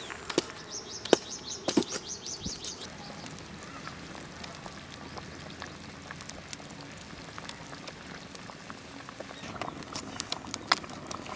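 A bird chirping in a quick run of high notes for about two seconds near the start. After that comes a faint outdoor background with scattered small crackles and clicks, fitting the wood fire burning under the cooking pot.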